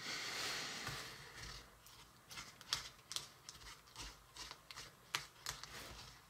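Small spatula stirring thick powdered-sugar icing in a plastic bowl: a faint scrape at first, then irregular light clicks and taps as the spatula knocks against the bowl.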